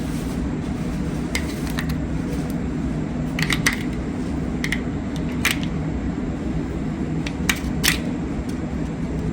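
Scattered small sharp clicks and taps of AA batteries and the lock's plastic battery holder being handled, over a steady low hum.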